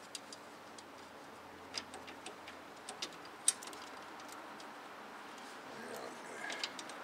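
Scattered light metallic clicks and taps from a new front wheel hub assembly and its mounting bolts being handled and started by hand. The sharpest click comes about three and a half seconds in.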